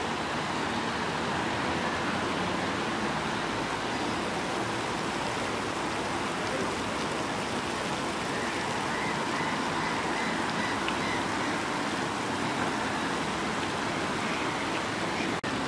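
Steady, even hiss of wind blowing outdoors, with a brief dropout near the end.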